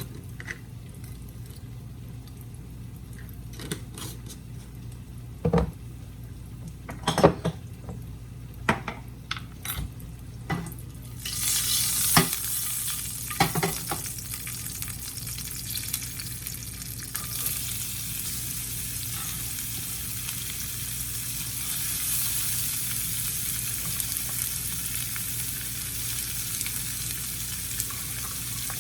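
A few sharp knocks of a utensil against a pan, then, about eleven seconds in, a sudden loud sizzle as food goes into hot mustard oil, continuing as steady frying and stirring.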